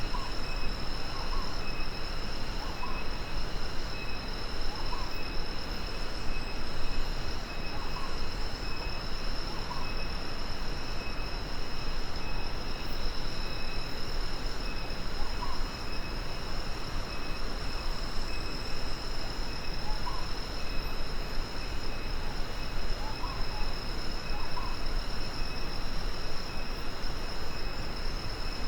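Daytime tropical jungle ambience: a steady high-pitched drone of insects in several tones, one of them pulsing, with short bird chirps every few seconds. A constant low rumble and hiss lie underneath.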